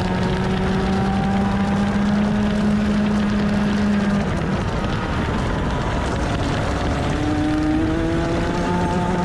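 Onboard sound of a Rotax 125cc two-stroke TaG kart engine at high revs. The pitch climbs slowly, dips about four seconds in as the kart comes off the power for a corner, then rises again from about seven seconds as it accelerates out. Steady wind and road rush sits under the engine.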